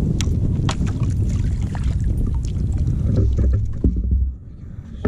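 Wind buffeting the microphone as a loud low rumble, with scattered light taps and knocks from a fishing kayak on choppy water; the wind rumble drops away about four seconds in.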